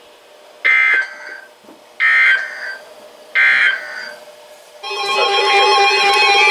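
Emergency Alert System end-of-message data tones from a NOAA weather radio: three short bursts of buzzy data tones about a second and a half apart, marking the end of the alert. About five seconds in, music with steady held chords starts.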